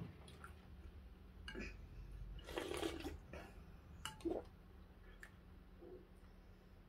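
Quiet eating sounds: a spoon and a ladle clinking lightly against bowls and a clay soup pot, with a short wet sound of soup being ladled or eaten about two and a half seconds in.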